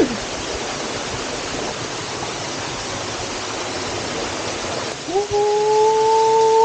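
Waterfall rushing steadily. About five seconds in, a steady voice-like tone starts and is held for about two seconds over it.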